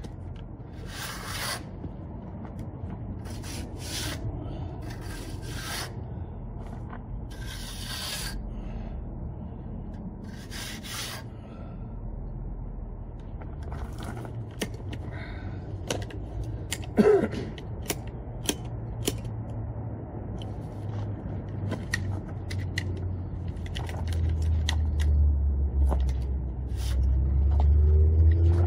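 Hand trowel scraping over wet cement in separate strokes, smoothing and finishing a ramp's surface. A low rumble grows louder over the last few seconds.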